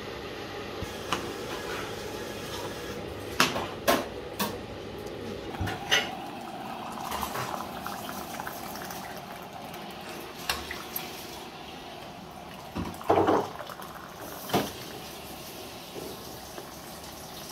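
Kitchen clatter: metal utensils and cookware knocking and clinking against pots and dishes. It comes as a handful of separate sharp knocks, with a tight cluster about thirteen seconds in, over a steady low background noise that eases off about six seconds in.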